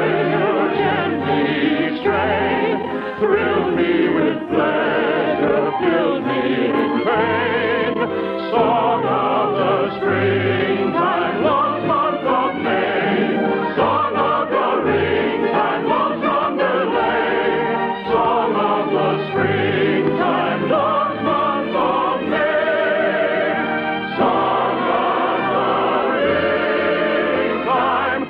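Operetta singing with orchestra, a choir joining in. It has the narrow, dull sound of a 1952 radio broadcast recording, with no high treble.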